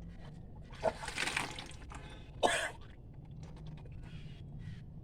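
A person retching and bringing up a large amount of swallowed salt water, which gushes and splashes out in sudden bursts, about a second in and again at two and a half seconds. This is the induced vomiting of the yogic stomach wash Kunjal Kriya (Vaman Dhauti).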